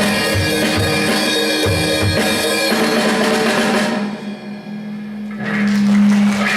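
Rock song's outro with drum kit and band playing. The top end drops away about four seconds in, leaving a held low note, then the full band comes back in on a sustained final chord.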